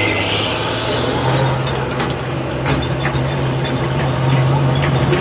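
Dump truck's diesel engine working hard as it pulls up a steep, rutted dirt road, with a steady low engine note that rises a little about a second in. The truck's body clanks and rattles as it bounces over the ruts. A brief high squeal comes early in.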